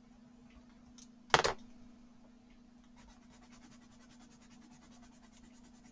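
A single sharp knock about a second in, then from about halfway a coloured pencil scratching across watercolour paper in rapid, even back-and-forth strokes as a colour swatch is laid down.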